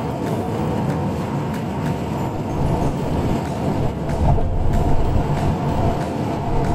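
Steady road and engine noise heard inside a car cabin while driving at highway speed.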